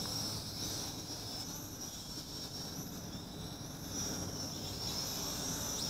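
Mould King 33043 Super F micro quadcopter's small motors and propellers whining, the high pitch wavering up and down as the throttle changes in expert-rate flight, over a steady low rumble.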